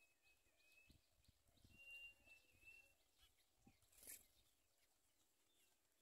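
Very faint outdoor ambience of distant birds chirping. A thin high whistle is held twice in the first three seconds, and a brief soft burst of noise comes about four seconds in.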